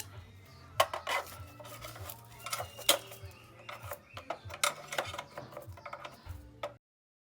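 Irregular metallic clinks and knocks of hand tools and metal parts being handled during scooter repair work, over a low hum. The sound cuts off abruptly near the end.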